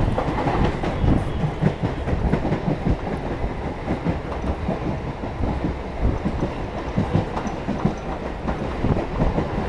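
Electric multiple-unit (EMU) suburban train running between stations, heard from on board: a steady rumble with rapid, irregular clacking of the wheels over the rail joints.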